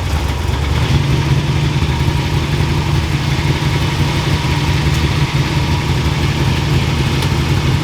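Off-road race vehicle's engine idling steadily, its sound low and even.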